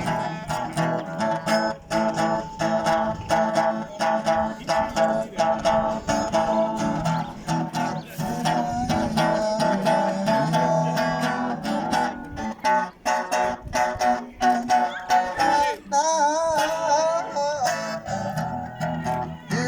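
Guitar strummed and picked in a steady run of chords, with a wavering held note near the end.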